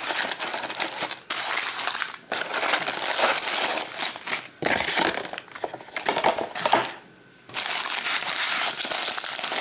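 Cardboard box and clear plastic bags of Lego pieces being handled: continuous crinkling and rustling with short pauses, the longest about seven seconds in.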